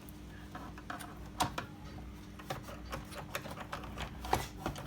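Irregular light clicks and taps of hand work on a washing machine's control panel as it is taken apart to reach the timer, over a steady low hum.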